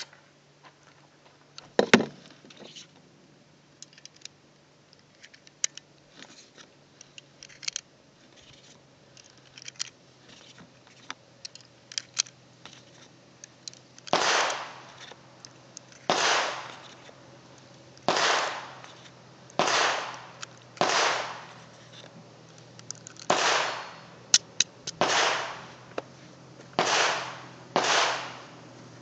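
9mm cartridges being pushed one at a time into a Llama 1911 pistol's magazine, a short scraping click for each round, about nine in the second half. Before that, one sharp click about two seconds in and light handling clicks of the pistol and magazine.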